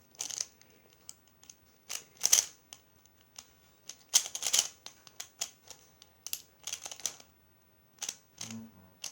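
Pyraminx puzzle turned rapidly in a speed solve: irregular plastic clicks and clacks as its layers and tips snap round, some coming in quick flurries.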